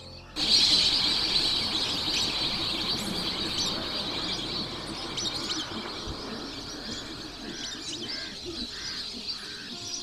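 Dense chorus of many birds calling at once from a large flock, starting abruptly and loudest at first. Near the end, four soft low calls sound one after another.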